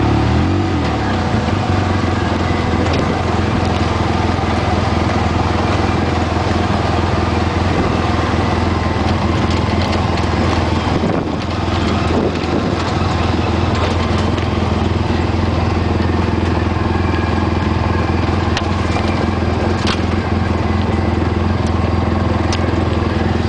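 An off-road vehicle's engine running steadily as it drives along a rough dirt trail, with a few short knocks and rattles.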